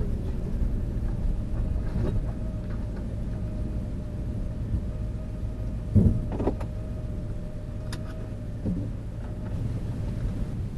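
A van driving: a steady low rumble of engine and road with a faint steady hum. There is a loud knock just past the middle and a sharp click a couple of seconds later.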